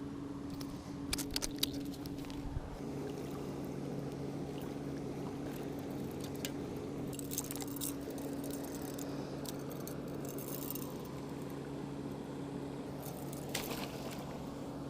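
An engine running steadily with a low, even hum, with brief light metallic clinks and rattles a few times over it.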